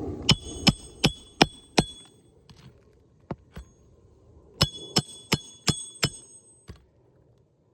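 Hatchet driving roofing nails back into an asphalt shingle, metal ringing on metal. Two quick runs of about five strikes each, roughly three a second, with a few lighter taps between and after.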